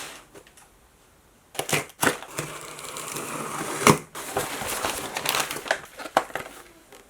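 Unboxing sounds: a few sharp clicks, then packaging rustling and crinkling with scattered knocks as it is handled and opened.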